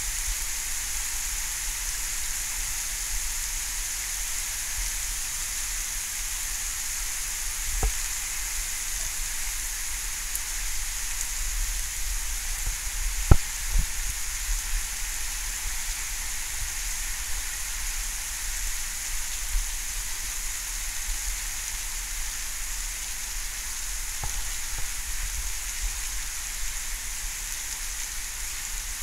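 Steady thunderstorm rain falling, an even hiss, with a few sharp clicks of single close impacts, the loudest about halfway through.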